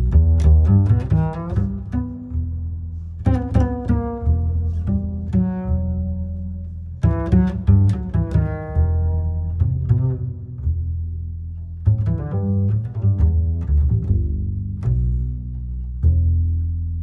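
Background music: clusters of plucked string notes that ring and fade, over a sustained deep bass line.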